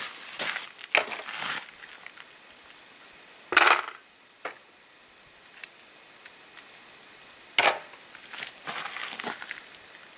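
Revolver being worked double action: small metallic clicks and rattles of the action, with two sharp snaps, the louder about three and a half seconds in and another near eight seconds.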